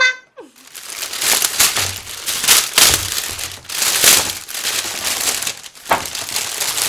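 White plastic carrier bag crinkling and rustling as a takeout order is pulled out of it, in a continuous run of crackles with a brief pause near six seconds.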